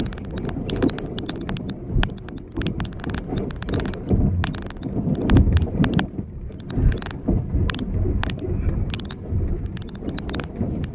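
Inside a car's cabin on a rough sandy dirt road: a steady low rumble of the car and its tyres, with frequent short clicks and knocks.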